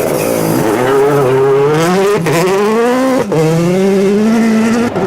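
Rally car engine accelerating hard through the gears, its pitch climbing, dropping sharply at an upshift about two seconds in and again just past three seconds, then climbing again.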